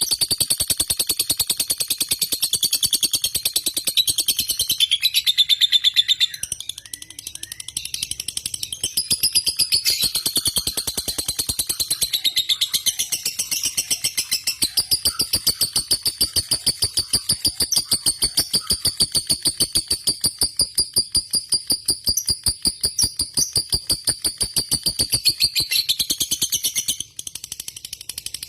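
Lovebird singing a long unbroken run of rapid, shrill chattering (the 'ngekek' song), dipping briefly about six seconds in and breaking off for a moment near the end. A very long continuous run like this is the trait prized in fighter lovebirds.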